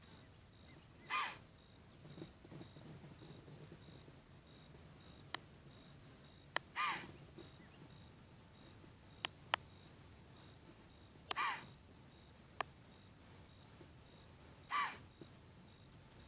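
Whitetail deer giving alarm snorts: four short, harsh calls spaced several seconds apart. They are the deer's warning sound on detecting a threat.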